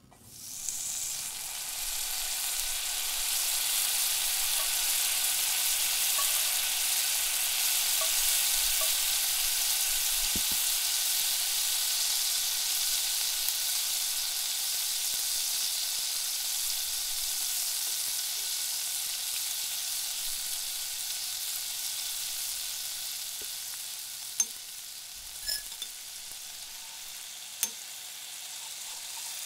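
Chopped onion tipped into hot olive oil in a frying pan, sizzling up at once and then frying steadily with a high hiss as it is stirred with a wooden spatula. The sizzle eases a little near the end, where a few sharp clicks sound.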